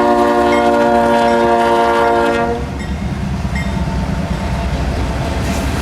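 CSX diesel locomotive's air horn sounding a steady chord, cutting off about two and a half seconds in. Then the steady low noise of the freight train's cars rolling past on the rails.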